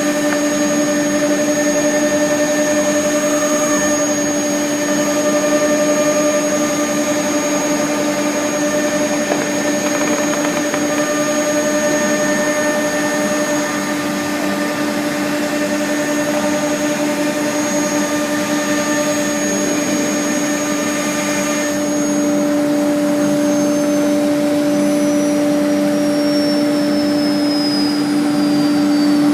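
CNC router cutting wood, its spindle whining high and steady over the steady drone of its dust collector. About three quarters of the way through, the cutting hiss stops and the high whine starts to fall steadily in pitch, while the drone keeps running.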